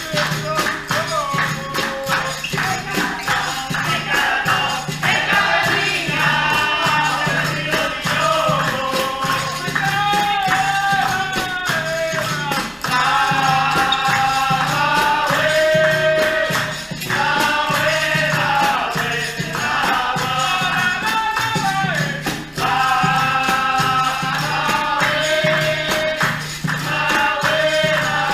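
Capoeira roda music: a group singing over berimbau and pandeiro, with a steady low tone and sharp percussion strokes under the voices.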